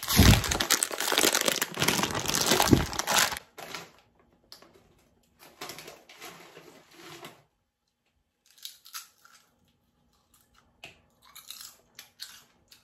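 Foil chip bag crinkling loudly for about three and a half seconds as it is handled and opened, then quieter scattered rustles of the bag.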